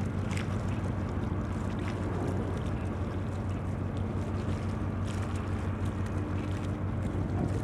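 Tugboat's engines running with a steady low drone as it manoeuvres slowly in harbour.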